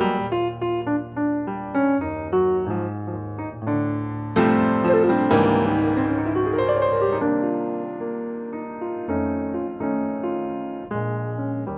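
Acoustic piano playing a jazz solo on a bossa nova standard: melody lines and chords over low bass notes, with a louder flurry of notes about four seconds in.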